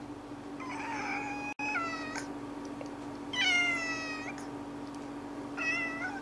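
Domestic cat meowing for food: three drawn-out meows, each sliding down in pitch, the last one short. A steady low hum runs underneath.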